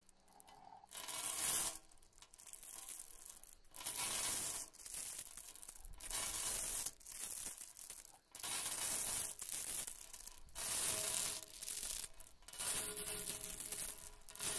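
Harsh scraping, hissing noise in swelling bursts of a second or two each, with short gaps between them.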